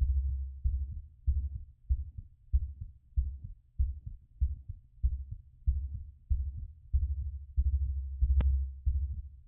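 Heartbeat heard through a stethoscope, an even run of low thumps at about 95 beats a minute, the rate still raised in recovery after exercise. A single sharp click near the end.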